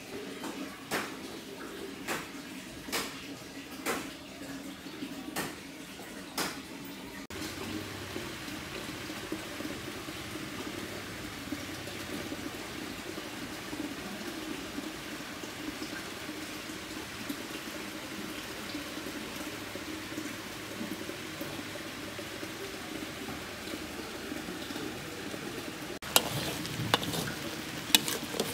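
Sharp clicks about once a second for the first several seconds, then a steady sound of running water. About 26 seconds in, a metal spatula starts scraping and stirring in a wok as blended chilli paste and lemongrass sizzle.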